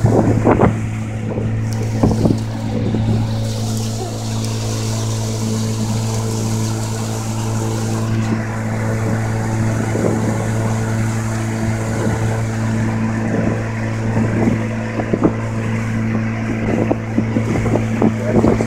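Boat motor running at a steady cruising speed, an even low hum, with wind noise on the microphone.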